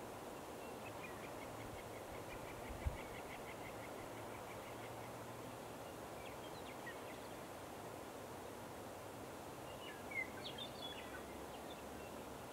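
Quiet outdoor background noise with distant small birds calling: a rapid run of evenly spaced notes during the first few seconds, a few scattered notes in the middle, and a short flurry of chirps near the end. One dull low thump about three seconds in.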